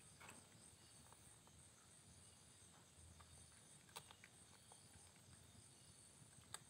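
Faint crickets chirping in a steady, high, evenly pulsing trill, with two brief sharp clicks about four seconds in and near the end.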